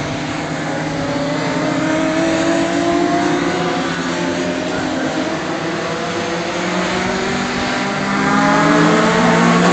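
A pack of racing saloon cars running through a corner, several engine notes overlapping and rising and falling in pitch. The sound grows louder about eight seconds in as the field comes nearer.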